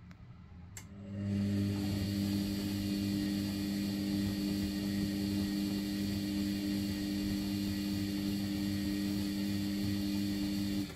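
Sharp (Vestel) ES-GFB7145W washing machine's drum motor starting with a click about a second in and turning the drum through a wash rotation with a steady hum, the sudsy load sloshing, during a 90° boil-wash main wash. It stops abruptly near the end.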